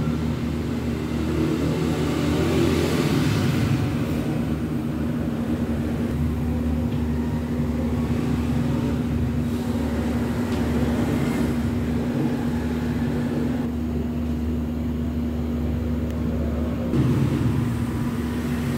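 A steady low mechanical rumble with a constant hum, from an engine or motor running throughout.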